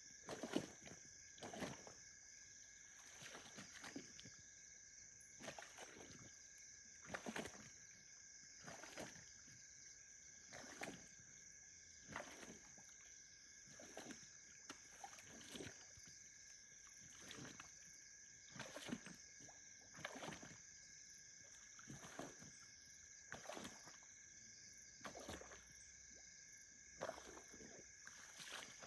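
A common hippopotamus chewing Nile cabbage (water lettuce) at the water's surface: faint, wet chomping and sloshing strokes that come regularly, roughly once a second. A steady high-pitched drone runs under it.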